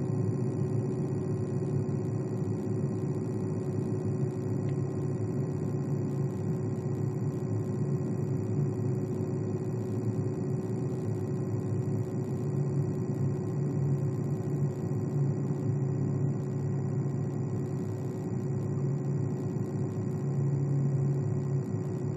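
Computer cooling fan running steadily: a whooshing hum of moving air with a steady tone over it.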